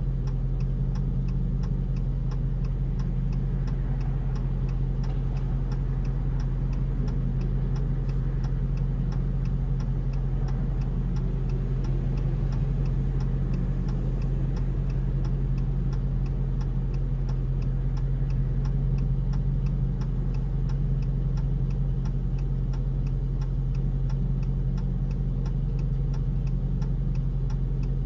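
Steady low hum of a car heard from inside, with a regular ticking about twice a second throughout.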